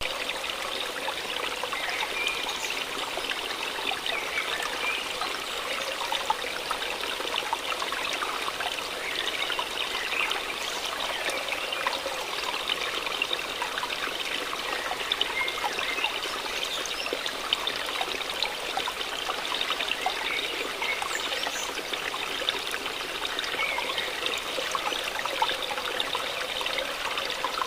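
Running water trickling and babbling steadily, like a small stream.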